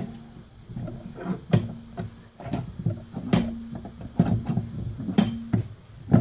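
Irregular knocks and clunks, about a dozen, as a spoked e-bike wheel with its direct-drive hub motor is handled and lifted off a wooden workbench. Several knocks leave a short metallic ring.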